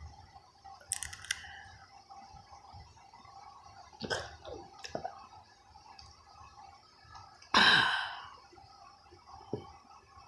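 Mouth noises and handling of a phone held right up to the face: scattered small clicks and rustles, with one louder burst about three quarters of the way through.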